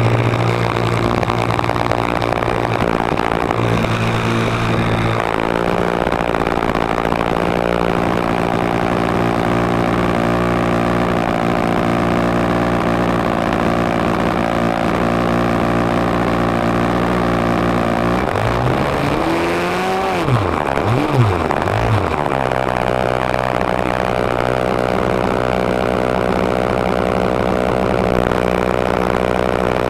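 Model airplane engine running steadily at idle, heard close up through the plane's onboard camera; about two-thirds of the way through its pitch dips and rises again a few times as the throttle is worked.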